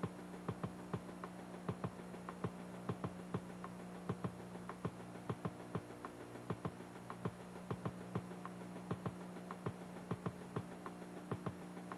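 Electric stair-climbing hand truck running: a faint steady motor hum with light ticking clicks about three a second, unevenly spaced, as it powers its wheels over the steps.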